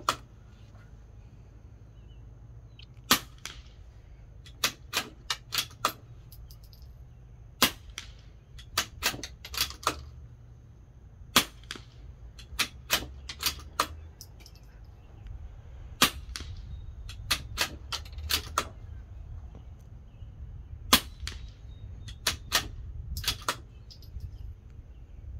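Five suppressed .22 LR shots from a CZ 457 bolt-action rifle fitted with a Sig Sauer SRD22X suppressor, firing subsonic CCI Quiet-22 rounds, spaced about four to five seconds apart. Each shot is a short sharp crack followed by a quick run of metallic clicks as the bolt is worked to chamber the next round.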